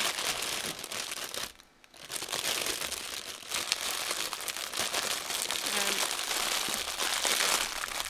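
Clear plastic packaging of a diamond painting kit crinkling and crackling as it is handled and pressed flat, with a short lull about a second and a half in.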